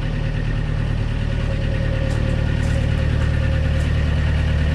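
Excavator's diesel engine idling steadily, with a deep, even drone.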